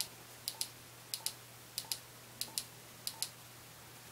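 Plastic keypad buttons on a Wouxun KG-UV8D handheld radio being pressed one after another as its menu is scrolled. Each press gives a click pair, press and release, repeating at a steady pace of about one press every two-thirds of a second.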